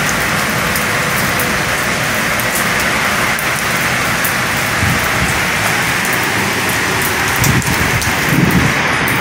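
Heavy downpour falling steadily as a dense hiss, with many individual drops ticking sharply close by. A few brief low thumps come through, two of them near the end.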